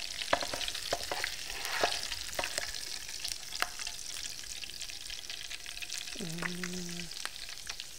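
Hot oil sizzling and crackling in a frying pan as kingfish steaks are fried and lifted out with a spatula, with scattered sharp clicks and pops.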